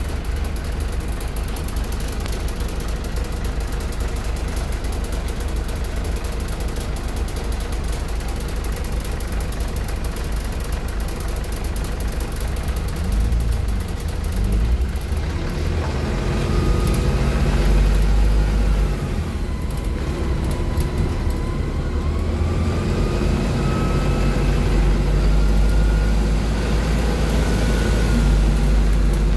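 PAZ 320414 city bus heard from inside the front of the cabin: the engine runs steadily at first, then from about halfway through the bus pulls away, with the engine's low note growing louder and a drivetrain whine rising and falling in pitch as it gathers speed.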